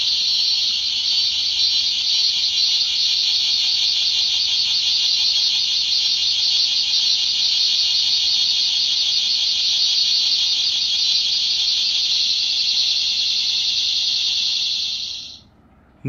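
Two SO-TA cicada-song capsule toys playing recorded cicada calls together through their small speakers: a dense, steady, high-pitched buzz with a fast flutter, fading out about fifteen seconds in.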